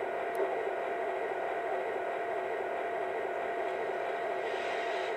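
Digital diesel engine sound from a Proto-Sound 2.0 board in an O gauge model U30C locomotive, running steadily through its small speaker with a constant hum and no low end.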